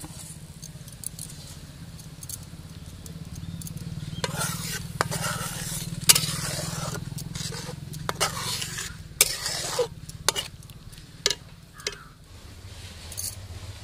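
A flat spatula stirring and scraping through a simmering curry in a large metal kadai, with several sharp knocks of the spatula against the pan's side from about five seconds in, over a steady low hum.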